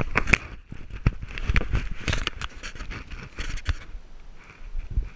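Handling noise from a body-worn GoPro: irregular rubbing, scraping and knocks, as fingers and an arm brush against the camera.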